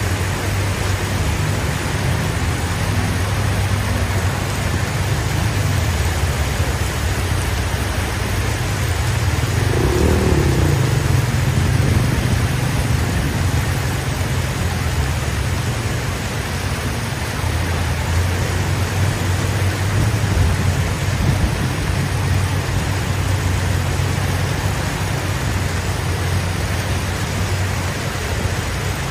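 A motor vehicle engine running steadily amid traffic noise, growing a little louder for a couple of seconds about ten seconds in.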